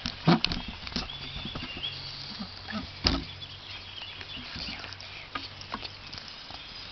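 Close-up rustling and knocking as a cat's fur and body brush and bump against the phone. The loudest thumps come a few tenths of a second in and about three seconds in, with faint high chirps in the background.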